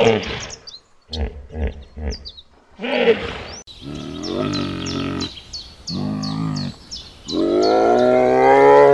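Animal calls: short, low, rapidly repeated pulses for the first three seconds or so, then three long pitched calls, the last one rising slightly and held longest, with a regular high chirping above them about four times a second.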